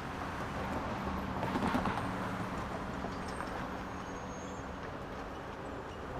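Busy street traffic: a steady wash of vehicle engines and tyre noise, swelling louder about one and a half seconds in as a vehicle passes close.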